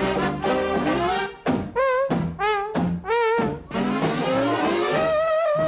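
Jazzy instrumental dance music led by brass: a run of short, punchy notes with a wobble of vibrato, then a rising slide into a long held note near the end.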